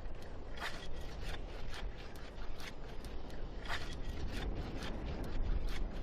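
Hand tools chipping and scraping at sea ice to cut a hole through it, in quick irregular strokes about three a second over a low rumble.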